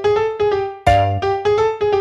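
Background music: a piano-like keyboard playing a quick melody of short notes that die away after each strike.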